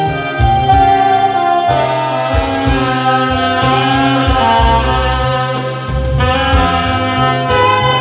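Alto saxophone playing a slow melody of long held notes over a musical accompaniment with a bass line.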